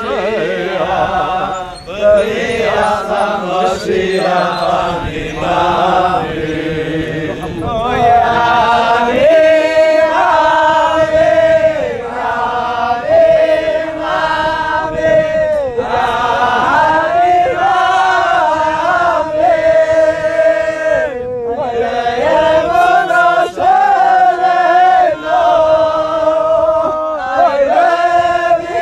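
Several voices singing together in a slow chant, holding long notes with short breaks between phrases.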